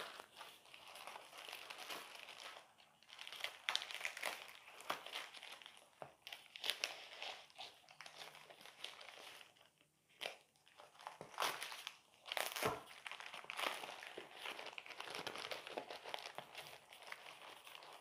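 Packaging being opened by hand: a black mailing envelope crinkling and rustling, with sharp crackles and some tearing, pausing briefly about halfway through.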